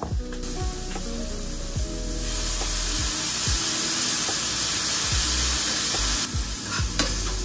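A frying pan sizzling as liquid from a bottle is poured into hot food on an electric stove: a loud hiss that swells about two seconds in and fades back after about four seconds. Background music plays throughout.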